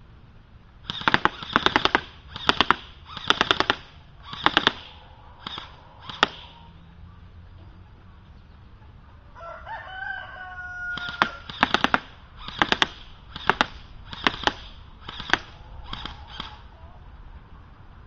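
DPMS Panther airsoft rifle firing in short rapid bursts of sharp cracks: six bursts, a pause of about four seconds, then six more. In the pause a brief pitched call, like a rooster crowing, is heard.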